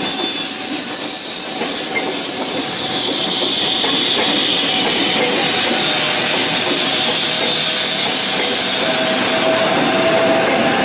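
KRL Commuterline 6000-series electric commuter train passing close by, its wheels clattering over the rails with a steady rumble and hiss, and a high whine swelling up a few seconds in and fading again.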